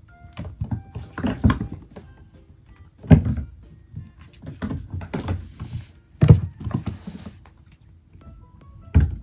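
Light background music with short melody notes, over loud thumps about every three seconds with rustling between them.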